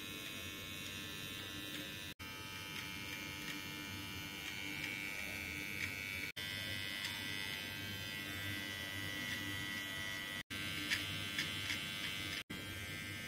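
Xiaomi Grooming Kit Pro trimmer running with its precision blade attachment, a steady electric buzz as it trims beard hair along the face. The buzz breaks off for an instant a few times.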